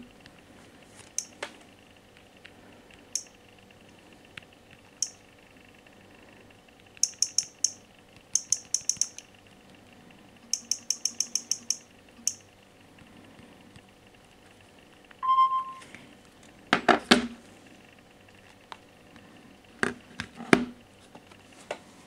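Runs of quick, sharp clicks as a Samsung Galaxy A3's touchscreen is tapped through its menus, with a short beep about two-thirds of the way in. Near the end come several heavier knocks as the phones are laid down on a wooden table.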